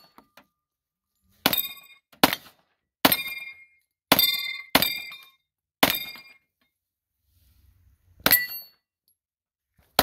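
Seven pistol shots fired at an uneven pace, a long gap before the last one. Most are followed by the brief metallic ring of a steel plate target being hit.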